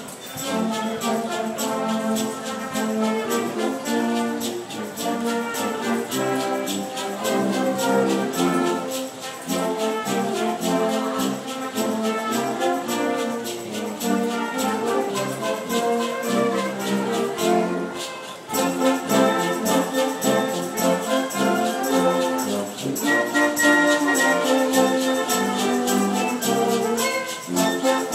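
Brass band with tubas and trombones playing a piece together, with a brief break about 18 seconds in before the playing resumes.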